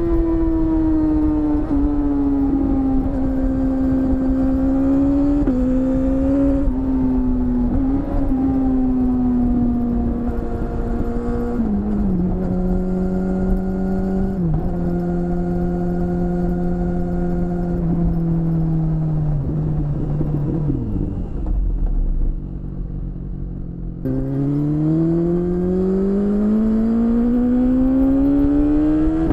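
BMW S1000RR's inline-four engine heard from the rider's seat. Its note sinks slowly with a few small jumps in pitch, falls away and goes quieter for a few seconds near the end, then climbs steadily as the bike accelerates hard.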